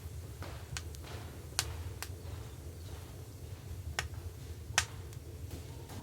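Scattered sharp clicks and taps, about eight of them at irregular intervals, over a steady low hum.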